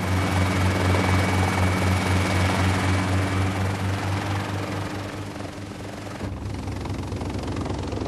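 Small bubble-canopy helicopter in flight: engine and rotor running with a fast, even rotor beat over a wide rushing noise. The tone of the low throb shifts about six seconds in.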